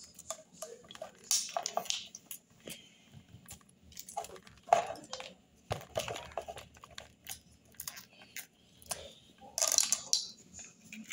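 Kitchen knife cutting the kernels off a fresh ear of corn: a string of irregular crunching, scraping strokes against the cob.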